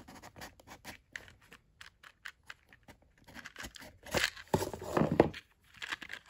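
Handling noise of a small cardboard gift box: light taps and rustles as its inner tray slides out, then a louder stretch of scraping and rustling about four seconds in as the card holding the chain is pulled from the box.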